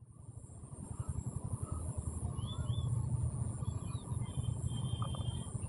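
Outdoor ambience with a low, buffeting rumble and a few short bird chirps about two and a half seconds in and again near four seconds, over a steady high hiss. The sound fades in at the start.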